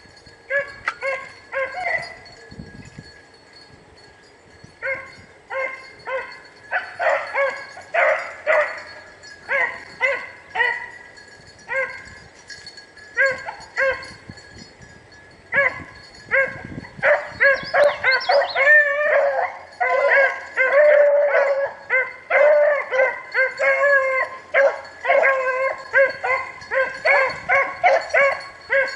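Rabbit-hunting hounds baying in repeated short barks. The barks are scattered at first, then after a lull near the middle several dogs give voice together almost without pause, as a pack does when it is running a rabbit's trail.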